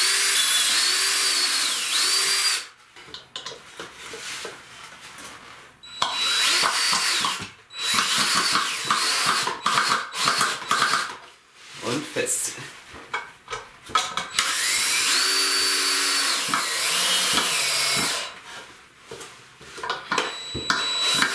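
Cordless drill-driver running in several bursts with pauses between, its motor whine rising and falling in pitch with the trigger as it works into wooden beams.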